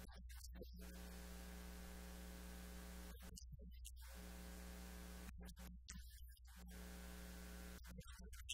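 Faint, steady electrical mains hum with a stack of overtones and light hiss, dropping out briefly several times.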